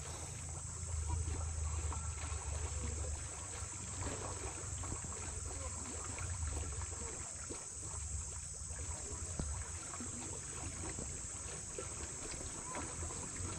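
Riverside jungle ambience: insects drone steadily at a high pitch over a low rumble that swells in the first few seconds, with faint scattered ticks.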